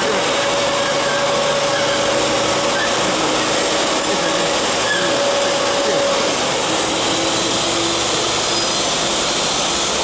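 Steady factory machinery noise: a constant loud hiss-like din with faint steady hums underneath and no distinct strokes or impacts.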